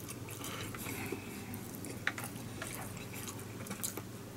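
Quiet eating sounds: soft chewing and chopsticks picking at fried chicken and fried rice in a plastic bento tray, with one sharper click about two seconds in.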